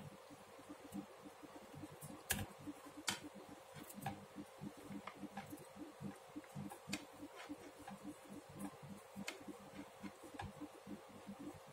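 Knitting needles clicking and tapping against each other as stitches are worked: a scatter of faint, irregular sharp clicks, a few of them louder.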